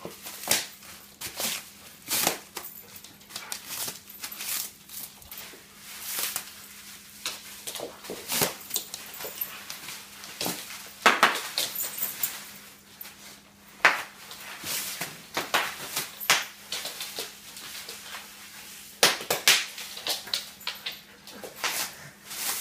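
Bubble wrap popping in irregular sharp snaps, singly and in quick runs, as dogs bite and trample it.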